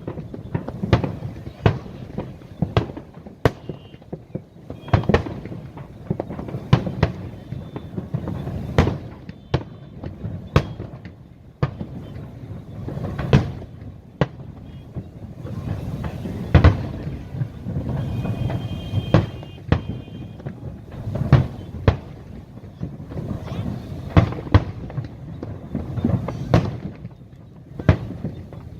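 Aerial fireworks display: a rapid, irregular string of sharp bangs, several a second, over a continuous low rumble of shell bursts.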